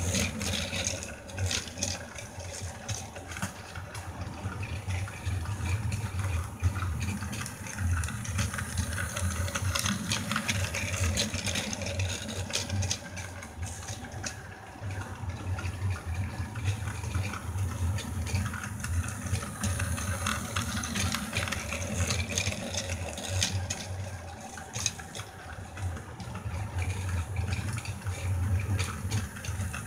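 Battery-powered toy train locomotive running on plastic track: a steady motor whir with the rattle of wheels and wagons on the track joints, hauling two flatcars loaded with coffee cans.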